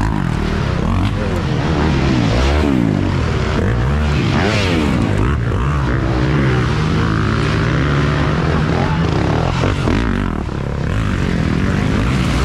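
Dirt bike engines revving on the climb, their pitch repeatedly rising and falling.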